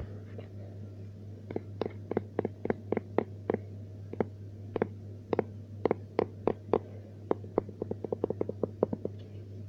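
A small household object being tapped or clicked over and over, in an uneven run of sharp taps about three or four a second that come faster for a moment near the end, over a steady low hum.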